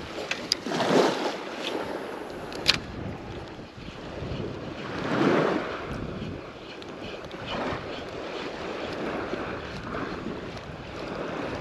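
Wind on the microphone and small waves washing in shallow sea water. The noise swells twice, about a second in and about five seconds in, with a few sharp clicks in the first three seconds.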